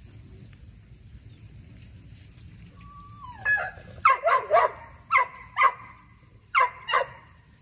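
Pit bull terrier barking: a short whine about three seconds in, then eight sharp barks over the next few seconds, mostly in quick pairs.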